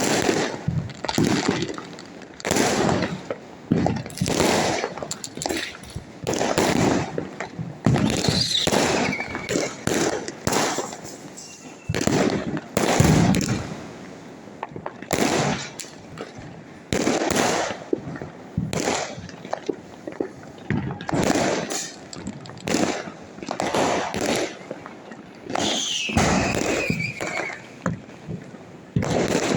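Diwali fireworks and firecrackers going off: a steady run of bangs and crackles, with two falling whistles, about eight seconds in and near the end.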